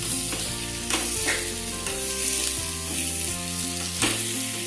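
Raw chicken mince sizzling in oil with fried onions in a frying pan, stirred with a wooden spatula that scrapes against the pan now and then.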